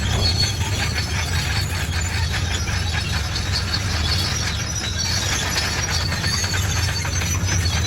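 Bulldozer's diesel engine running steadily, with high squealing and clinking from its moving steel crawler tracks.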